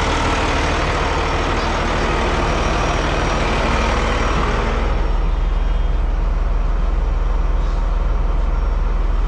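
Fire truck's diesel engine running with a steady low rumble; the brighter, higher part of the noise drops away about five seconds in, leaving the low rumble.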